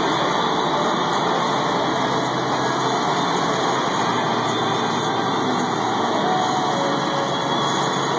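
Blue Angels F/A-18 Hornet jet engines running on the ramp before taxi, heard as a steady, even rushing noise.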